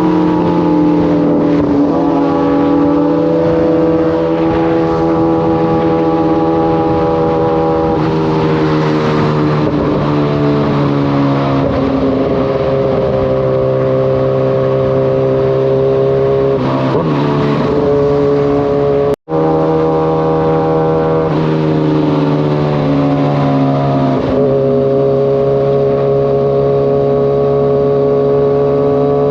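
Kawasaki sportbike's inline-four engine running under way at a fairly steady speed, its pitch drifting slowly down and shifting a few times with the throttle. The sound cuts out for an instant about two-thirds of the way through.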